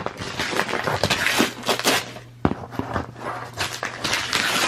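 Gift wrapping paper being torn and crumpled in irregular crackling rips as a one-year-old unwraps a present.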